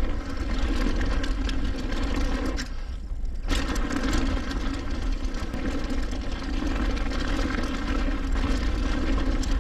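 Mountain bike rolling down a trail: the rear hub's freewheel buzzing steadily while coasting, dropping out for about a second around three seconds in, over a constant low rumble of wind and trail noise.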